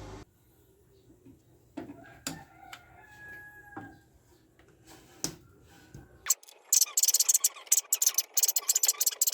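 Gasless (flux-core) MIG welding arc from a Kawasaki MINI MTM-300A inverter welder crackling and spattering in rapid, irregular sharp pops. It starts about six seconds in, after a few quiet clicks.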